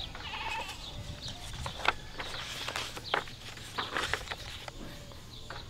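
Paper pages of a thick book being turned, with several short, crisp rustles. A brief animal call near the start.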